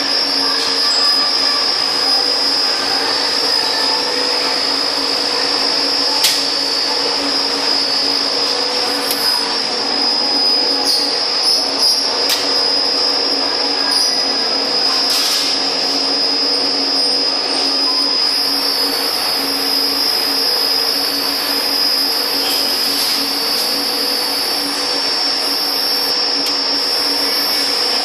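MT100 13D high-speed CNC wire flattening machine running, its rolls flattening wire: a steady high-pitched whine over a lower hum, with a few sharp clicks.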